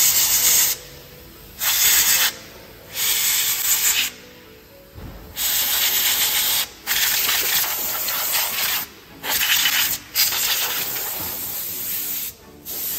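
Compressed-air blow gun blasting over the top of a car engine in about eight hissing bursts of varying length, blowing dust away from around the ignition coils and fuel injectors.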